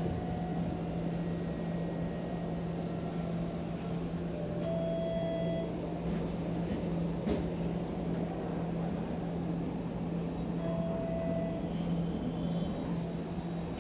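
Steady electrical hum and low rumble inside a TTC streetcar. Two short pitched tones sound, about five seconds in and again near eleven seconds, and there is a single click in between.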